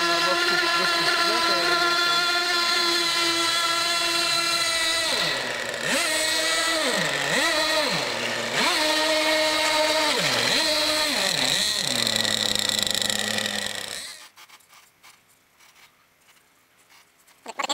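RC boat motor running at a steady high pitch, then throttled down and back up several times in quick dips, settling at a lower pitch before cutting off about fourteen seconds in.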